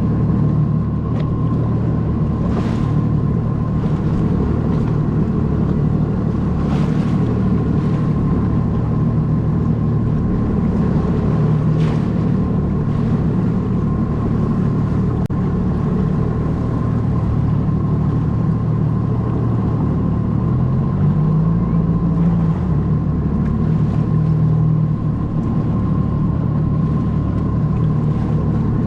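Jet ski engine running steadily under way, with its pitch rising about two-thirds of the way through as the throttle opens. A few brief rushing hisses of spray or wind cut across it.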